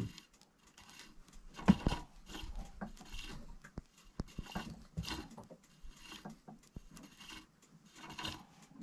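Penn 4000 spinning reel being cranked in a jigging retrieve, with repeated short scraping and rustling bursts about once or twice a second from the reel and rod handling.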